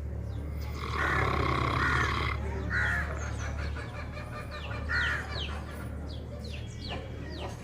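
Dog snoring: one long snore starting about a second in and lasting over a second, then two short snores about three and five seconds in.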